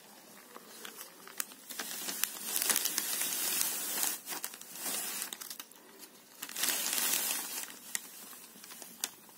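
A thin crumpled sheet crinkling and rustling as it is handled and pulled. There are two longer bouts, one starting about two seconds in and lasting about two seconds, and a shorter one near seven seconds in, with small scattered crackles between.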